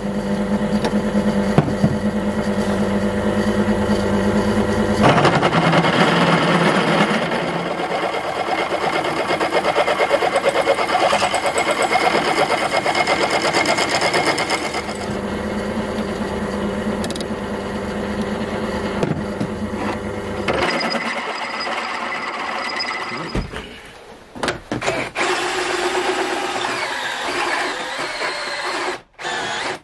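Pillar drill boring a 12 mm hole into a solid steel block: the motor runs steadily, then the bit bites and cuts noisily from about five seconds in. About two-thirds of the way through it gives way to a cordless drill running a large twist bit, which stops briefly twice.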